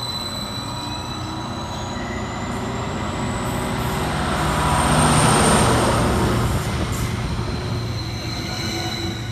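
Class 231 Stadler FLIRT diesel-electric multiple unit pulling out and passing, its engines running under a high whine that rises in pitch as it gathers speed. It is loudest about five seconds in as it goes by, then eases away.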